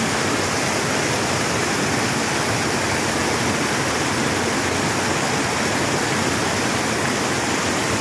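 Small waterfall spilling over stepped rock ledges, its water rushing and splashing steadily at close range.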